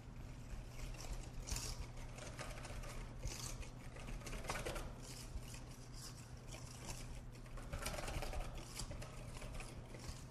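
Wire whisk beating a thick mayonnaise and cider vinegar dressing in a stainless steel mixing bowl: a fast, uneven run of light clicks and scrapes as the wires strike the bowl.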